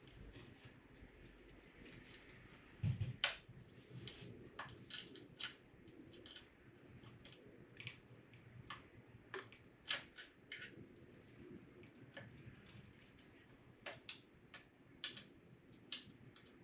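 Irregular small clicks and taps of hand work on small metal parts and tools, with a louder knock about three seconds in.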